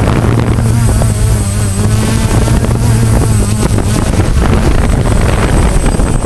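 DJI Phantom quadcopter's motors and propellers running loud and close, heard from the drone's own camera, with a steady motor hum that wavers slightly in pitch and fluttering propwash as it descends and sets down in grass.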